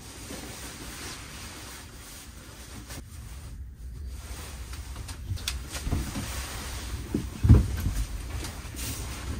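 Someone moving about inside a small wooden truck camper: irregular knocks, thumps and footsteps on the wooden floor over a steady low hiss. The knocks start about halfway through, and the loudest thump comes about two seconds before the end.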